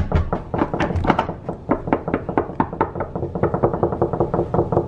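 Rapid knocking and pounding on a door by hand. It is uneven at first, then becomes a fast, even drumming of about ten knocks a second.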